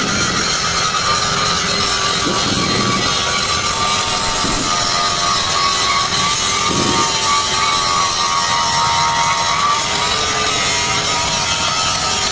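A power tool working metal, running steadily with a high whine that slowly drops in pitch and fades out after about ten seconds.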